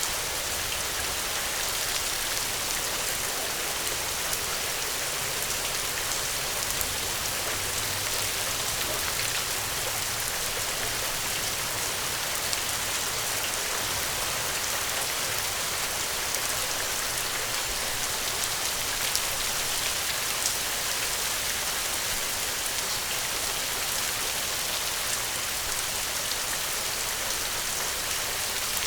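Steady rain falling, a dense even hiss of many small drops hitting a surface, with no letting up.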